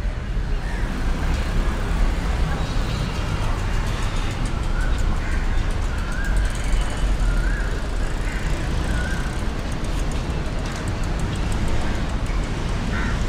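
Steady street traffic noise, a continuous low rumble with no distinct events.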